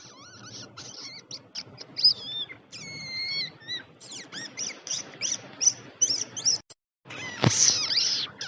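Rats squeaking: a quick run of short, high-pitched squeaks and chirps, many gliding up or down in pitch. The squeaks break off briefly about seven seconds in, then a longer squeal follows near the end.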